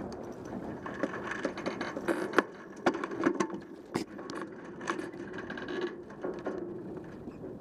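Sailboat sheet winch ratcheting, with irregular sharp clicks and knocks as the crew work the lines, over a steady background hiss.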